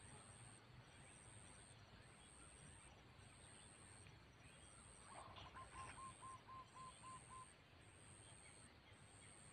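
Faint outdoor quiet with a high-pitched buzz that pulses about once a second. About halfway through, a bird, likely one of the chickens, gives a run of about eight quick, evenly spaced calls.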